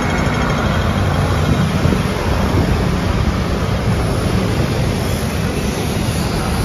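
City street traffic at a busy intersection: motor scooters, a truck and vans driving past, a steady wash of engine and tyre noise.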